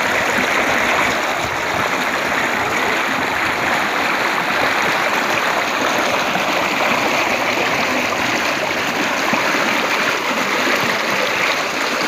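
Flash floodwater from a heavy rainstorm rushing and churning in a fast torrent past the bank: a steady, loud rush of water.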